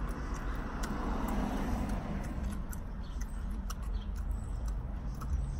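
A road vehicle passes outside, heard from inside a parked car: a broad rush that swells over the first two seconds and fades. Short wet clicks of someone chewing a mouthful of taco run through it.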